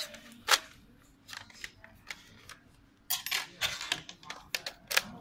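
Sharp plastic clicks and snaps from a VR headset's shell as it is flexed and pried apart by hand: one loud snap about half a second in, a quick run of clicks around three to four seconds, and two more near the end.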